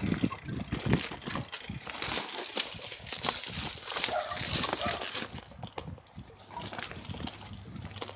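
Bicycle riding over a leafy dirt trail: rustling and clatter of the tyres over leaves and twigs and the bike rattling, with many quick clicks and knocks. It drops in level about five seconds in.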